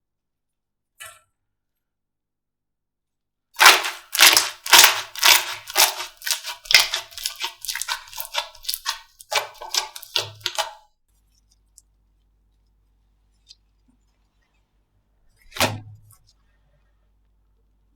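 Slime being pressed and worked by hand, giving a quick run of loud, sharp pops and crackles, several a second, for about seven seconds, then one more pop a few seconds later.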